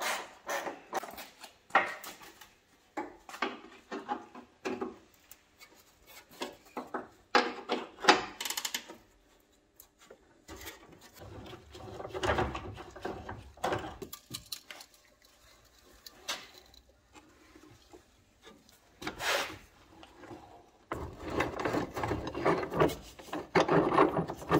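Irregular clicks, knocks and scraping of hand tools and sheet metal as the damaged front wing of a BMW E30 is worked loose, with a longer stretch of scraping and rattling near the end.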